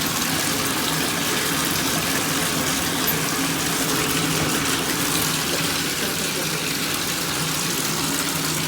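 Tap water running steadily, a constant rushing splash.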